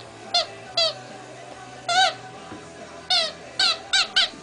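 A rubber squeaky frog toy squeaked repeatedly as a chihuahua bites and squeezes it. There are about seven short squeaks at uneven intervals, each rising and falling in pitch, bunched closer together near the end.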